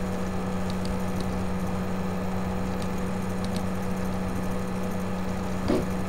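Steady low background hum with a constant drone, picked up during a pause in the narration, with a few faint clicks in the first few seconds.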